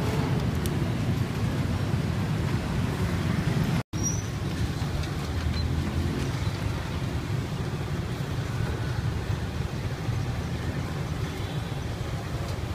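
Steady low rumble of background noise, with a brief dropout about four seconds in where the recording cuts.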